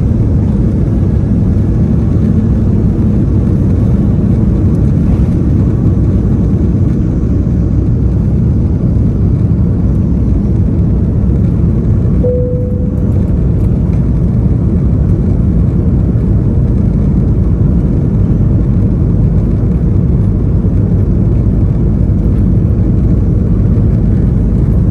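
Airbus A330-200 cabin noise during the takeoff run, heard from a window seat: a loud, steady, deep rumble of the engines at takeoff thrust and the airflow. A brief single tone sounds about halfway through.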